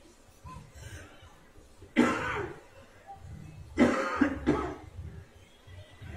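A man coughing forcefully three times, once and then twice close together, bringing up phlegm into a cloth held to his mouth. The coughing is part of a breathing exercise meant to clear mucus from the airways.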